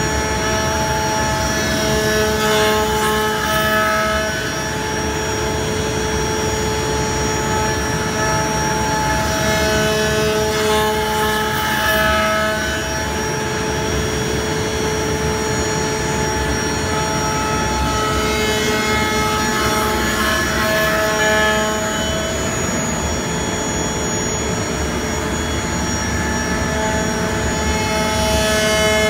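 ShopBot CNC router spindle cutting a wooden cutting board with a 2-inch insert carbide bit: a steady machine whine over cutting noise, its tones shifting every few seconds as the bit moves along the board.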